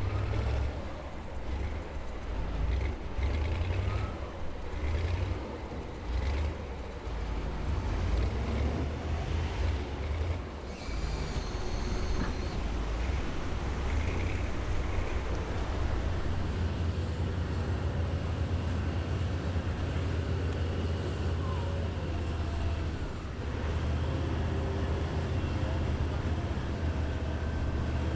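Heavy diesel engines of M3 amphibious bridging rigs running steadily with a deep rumble; the sound shifts abruptly about a third of the way through.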